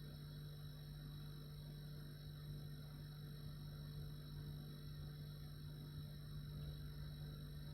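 Refrigerator running: a steady low hum with a faint high whine above it, unchanging throughout.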